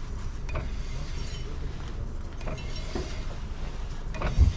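Jacked-up wheel of a UAZ Patriot being worked back and forth by hand, giving faint short creaks from the wheel and brake area, a squeak they suspect comes from a stone lodged behind the brake shield. Wind rumbles on the microphone, and there is a thump near the end.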